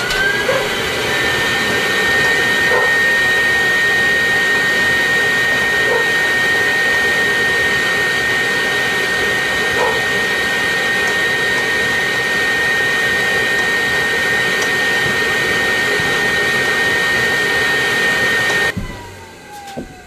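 Vacuum motor switched on, spinning up into a loud, steady high whine, then switched off near the end and winding down with a falling pitch.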